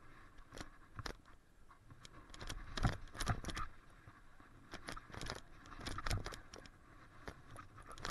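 Mountain bike rattling and clattering over a rocky descent, tyres knocking on stones and loose dirt. Bursts of rapid knocks and rattles come about three seconds in and again around five to six seconds in.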